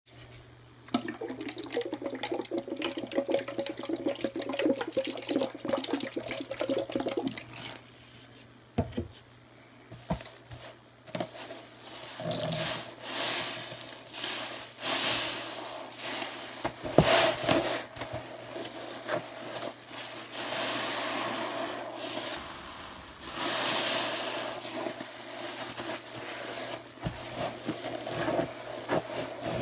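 Water sloshing and crackling for several seconds, then a soapy yellow sponge squeezed again and again in a basin of water: wet squelches and bursts of water running out of it.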